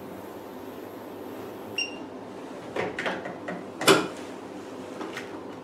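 A short electronic beep from the facial machine about two seconds in, then a cluster of plastic clicks and knocks as its handpieces are handled and seated in their holders, the loudest near four seconds, with a few lighter clicks after. A steady low hum runs underneath.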